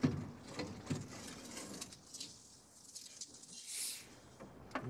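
Faint, scattered clicks and light scraping of hand tools and parts being worked in an old van's engine bay, with a brief soft hiss near the end and a sharper click just before it ends.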